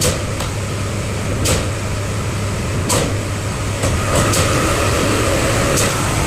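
Heavy construction machine's engine running with a steady low hum, with sharp clicks or knocks every second or so. About four seconds in a higher whine joins and the sound grows slightly louder.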